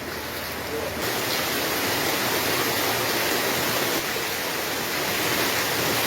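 Steady rushing of running water from a stream flowing beside the house, a little louder from about a second in.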